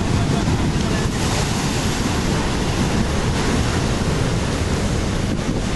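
Surf breaking continuously on a rocky reef, a steady rush of waves, with wind rumbling on the microphone.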